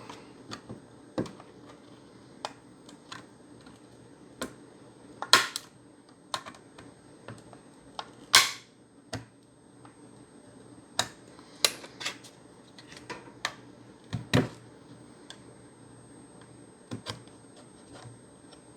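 Irregular sharp plastic clicks and snaps from prying at the clipped plastic case of an Xbox One S power supply, with a few louder snaps among lighter taps.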